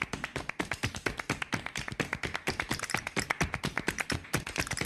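Background music carried by rapid, sharp percussive taps in a steady, even rhythm.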